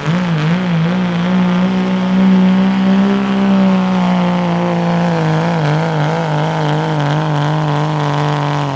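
Dodge Ram pickup's Cummins diesel straining at full throttle while pulling a weight-transfer sled. Its note wavers up and down at first, then steadies and sinks lower as the sled drags the truck down.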